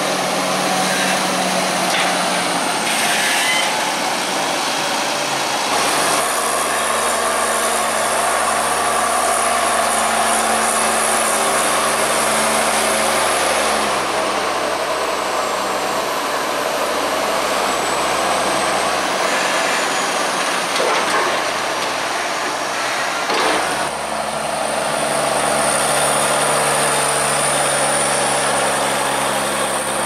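Fendt 724 Vario tractor's six-cylinder diesel working a buckrake through maize silage, its engine note shifting with load several times, with a thin high whistle that rises and falls.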